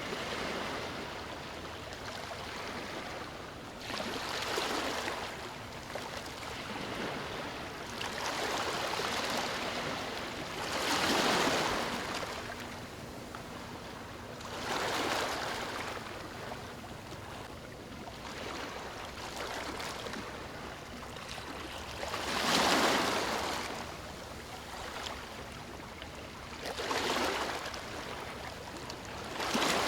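Ocean surf: waves breaking and washing up the shore, each break a swell of rushing noise that builds and fades, coming every four to seven seconds. Two of the breaks, about a third of the way through and again about three-quarters of the way through, are louder than the rest.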